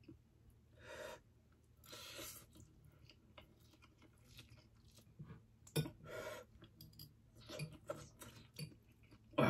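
A person eating spicy instant noodles: wet slurps and chewing in several short swells, with a few sharp clicks.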